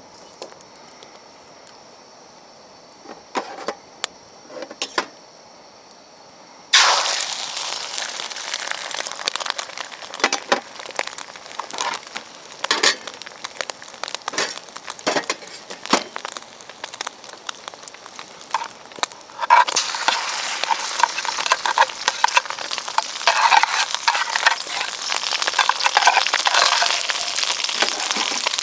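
Food sizzling in a hot Yamada Kogyosho iron wok over a campfire while fried rice is cooked: a few faint clicks at first, then the sizzle starts suddenly about a quarter of the way in, broken by clicks and scrapes of a spatula on the wok. About two-thirds of the way in it becomes louder and more crackly.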